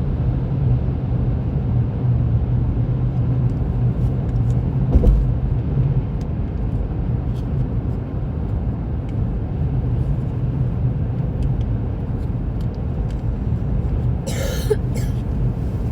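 Car cabin noise while driving: a steady low rumble of engine and tyres on the road. A thump comes about five seconds in and a short hiss near the end.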